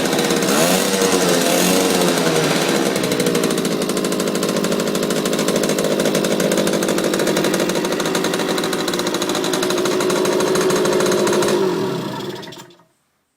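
Yamaha SS50 (YJ2) 50cc two-stroke moped engine running, freshly revived after decades standing. The pitch rises and falls with a few throttle blips in the first three seconds, then it settles into a steady idle, and the sound dies away about a second before the end.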